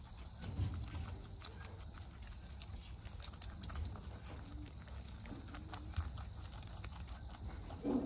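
Rabbits chewing fresh dandelion greens close to the microphone: a rapid, uneven run of crisp little crunching clicks.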